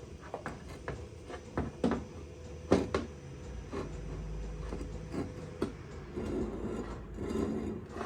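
Workshop handling noise: an irregular run of clicks and clunks as tools and metal parts are picked up and put down on a bench, with the loudest knock about three seconds in and a low rumble shortly after.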